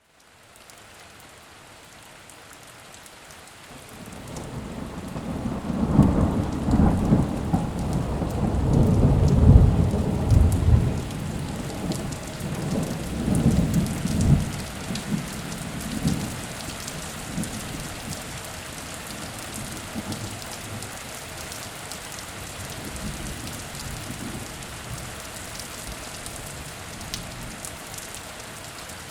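Steady rain with a long roll of thunder that builds about four seconds in, rumbles loudest for several seconds, and dies away, leaving the rain falling on its own.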